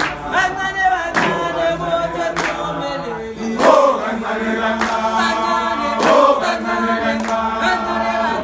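A group of young men singing a chant together without instruments, many voices in harmony, with sharp hand claps keeping a steady beat a little slower than once a second.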